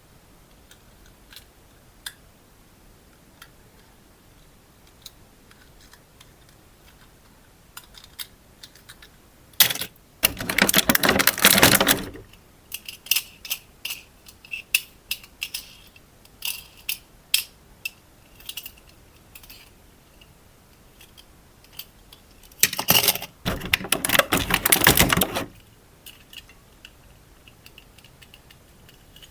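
Handling noises: scattered small clicks and taps, with two loud noisy bursts of about two seconds each, one near the middle and one about two-thirds of the way through.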